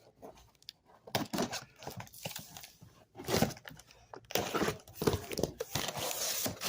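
A cardboard shipping box being opened by hand: irregular tearing and crinkling of the packaging with a few knocks, growing into denser continuous rustling from about four seconds in.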